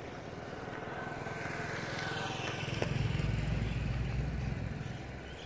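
A motorcycle passing close by: its engine grows louder over a couple of seconds, is loudest past the middle, then fades away near the end, its pitch dropping as it goes.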